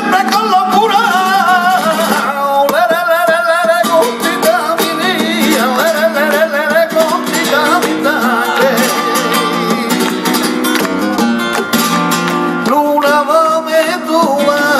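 Flamenco tangos: a male cantaor sings long, wavering, ornamented lines over a flamenco guitar, with palmas (hand-clapping) keeping the beat with sharp claps.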